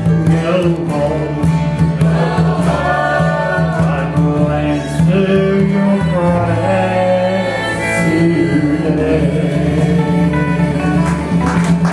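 A man singing a bluegrass gospel song, with wavering held notes, over an acoustic string band with upright bass holding steady notes underneath.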